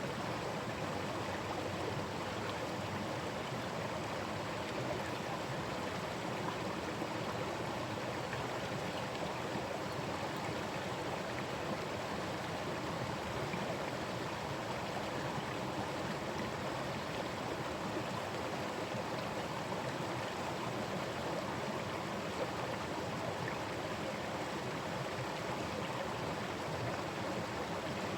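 Forest stream running over rocks: a steady, even rush of flowing water with a little gurgling.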